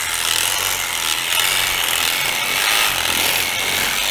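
Handheld electric brisket saw running steadily as it cuts through a bison's sternum, splitting the breastbone.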